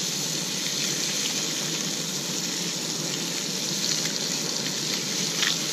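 Trout fillets sizzling in butter in a nonstick frying pan over a portable gas stove: a steady hiss with faint scattered crackles.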